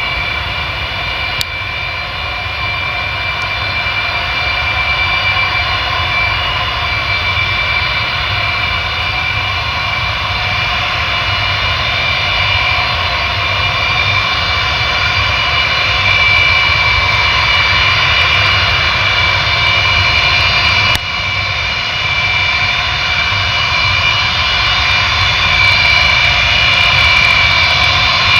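Antonov An-124-100M's four D-18T turbofans running at low power as the freighter taxis: a steady high whine of several tones over a low rumble. It grows gradually louder as the aircraft comes closer.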